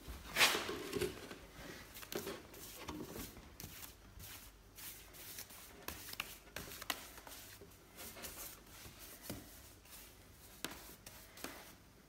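Paintbrush bristles scrubbing and dabbing a wet cleaner onto weathered macrocarpa wood, with irregular scrapes, rustles and small taps; the loudest rustle comes about half a second in.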